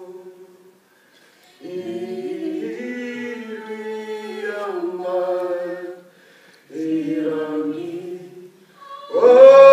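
Unaccompanied singing of a Māori waiata, in phrases with short breaths between them. About nine seconds in it becomes much louder on a long held note.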